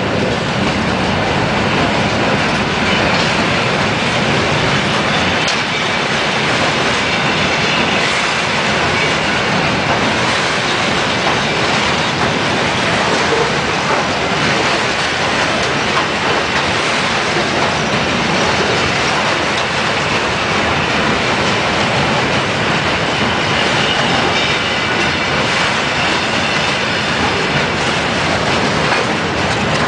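Freight train of hopper wagons rolling past close by: steady, loud noise of steel wheels on the rails, thick with short clacks as the wheels run over the rail joints.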